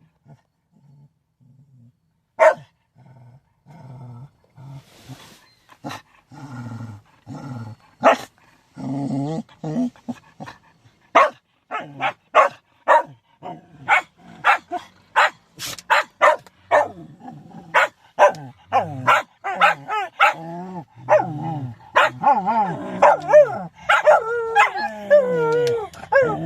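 Shetland sheepdogs giving short sharp barks and sneezes, sparse at first and then coming fast one after another, with low growling between them. Near the end they break into wavering howls.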